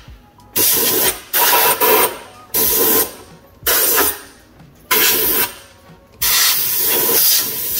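Compressed-air blow gun firing short blasts of hissing air, about six in all with the last the longest, blowing dirt out of a car's engine air filter housing.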